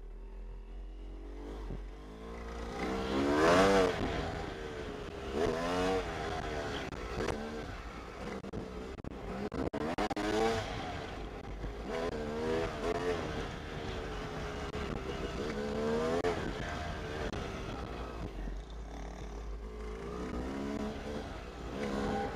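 Yamaha YZ250 two-stroke dirt bike engine revving up and down as it rides a trail, its pitch climbing and dropping every couple of seconds as the throttle is worked, loudest about three and a half seconds in.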